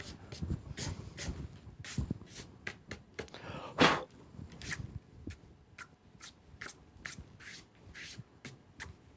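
Dry fingertips rubbing and brushing across watercolour paper in short, quick strokes, lifting off dried masking fluid. The strokes come about two or three a second, with one stronger swipe about four seconds in.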